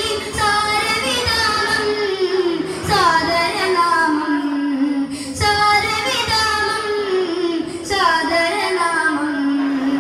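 Boys' voices singing a Mappilappattu devotional song together through microphones and a PA, in long phrases with a gliding, ornamented melody and short breaths between phrases.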